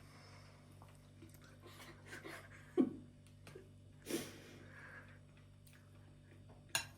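Quiet eating at the table: faint chewing with a few soft knocks of utensils on dishes, the loudest about a third of the way in, and a sharp click near the end.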